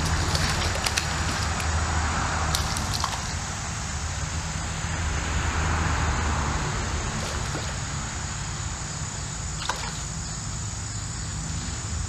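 Steady rumble of traffic on the four-lane highway bridge overhead, swelling as vehicles pass about two and six seconds in, over a thin steady high-pitched hum. A few faint clicks and splashes from the creek water.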